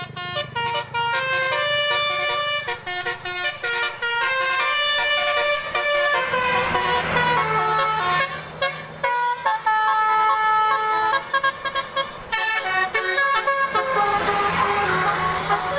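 Telolet basuri musical horn playing a fast tune of stepped notes, several pitches sounding together, with a couple of short breaks.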